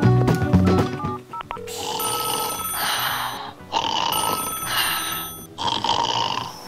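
Background music for about the first second, then a telephone ringing in repeated rings with short gaps between them.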